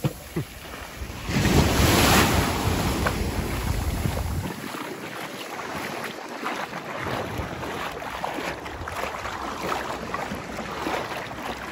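Sea water washing and lapping at the shore, with wind buffeting the microphone and loudest about one to two seconds in.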